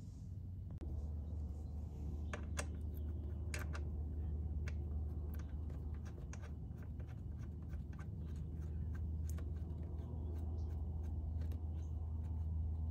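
Irregular small metallic clicks and taps as a bolt on a Honda Helix scooter's final drive case is handled and turned by hand, over a steady low hum.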